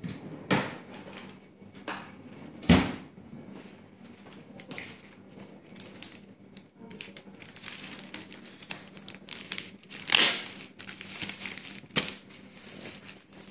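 Plastic wrapping crinkling and rustling as it is handled, with a few sharp knocks, the loudest about two and a half seconds in.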